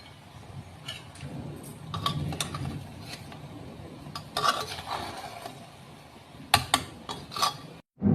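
Spoon knocking and scraping against a cooking pot while stirring rice mixed with vegetables, in scattered clinks that come most often near the end.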